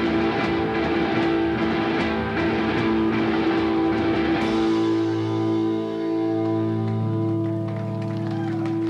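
Live rock band playing loud: electric guitars and drum kit. About halfway through the drums drop out and the guitars hold long, ringing sustained notes.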